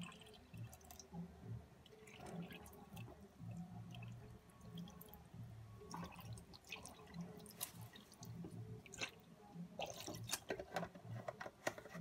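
Spirit of salts (hydrochloric acid) dripping from a plastic bottle into a boiler's plate heat exchanger in a steel sink, faint liquid drips with many small scattered clicks, thicker near the end, as the bottle is handled and set down.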